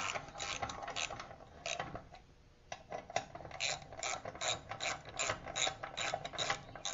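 Socket ratchet clicking as it backs out the 3/8-inch bolts of a Briggs & Stratton small engine's blower housing, about four clicks a second, with a brief pause about two seconds in.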